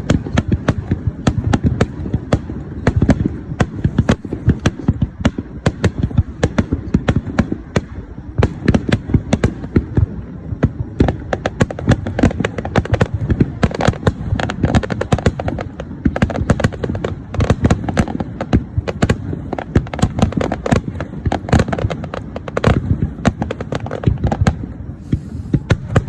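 Fireworks display: a dense, continuous run of sharp bangs and crackles, many a second.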